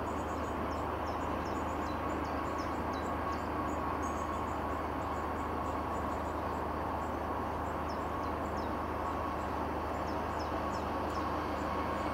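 Small motorised rail trolley running steadily along the track toward the listener. A bird calls over it with short, high falling whistles in two runs, one early and one about two-thirds of the way through.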